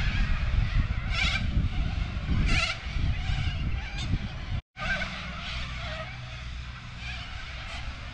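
Toyota FJ Cruiser's V6 engine and road noise while driving, heard in two short clips with a hard cut about halfway through. A few brief high chirps sound over the engine in the first clip.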